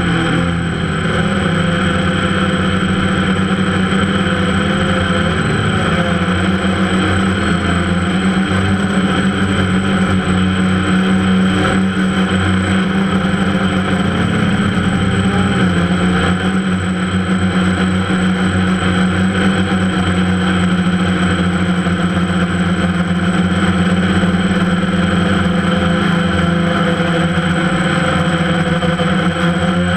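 Motors and propellers of a camera-carrying drone giving a loud, steady hum, heard up close through the onboard camera's microphone, the pitch wavering slightly as it flies.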